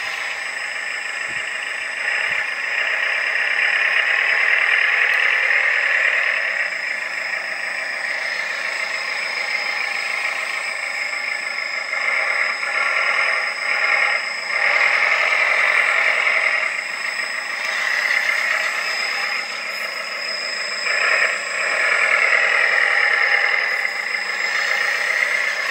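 Simulated diesel engine sound from an RC dump truck's sound module, played through its small onboard speaker, running and swelling up in pitch and volume several times as the truck is driven. A steady high whine runs underneath throughout.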